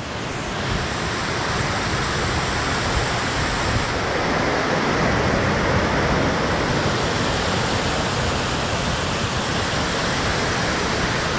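Mountain torrent tumbling down a steep rocky cascade close by: a steady rush of white water.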